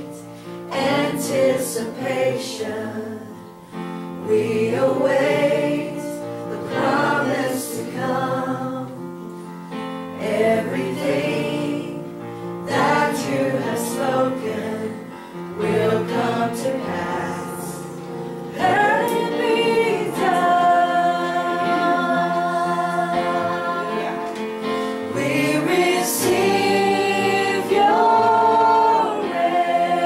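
Gospel worship song: several voices singing over steady held accompaniment, the notes growing longer and more sustained in the second half.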